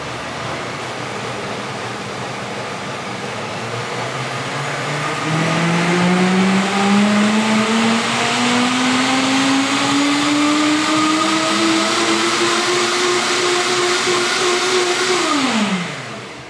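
Vitamix high-speed blender running. Its motor pitch climbs steadily from about five seconds in as it speeds up, then winds down quickly and stops near the end.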